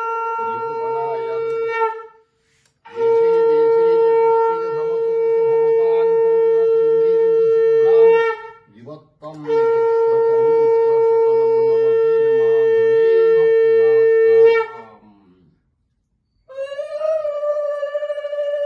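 Conch shell (shankha) blown in long, steady, horn-like blasts of about five seconds each with short breaks for breath, the first already sounding. Near the end a higher, wavering, trilled call begins: women's ululation (ulu).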